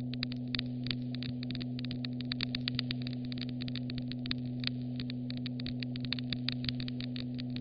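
Fire crackling, with many irregular sharp pops, over a steady low hum.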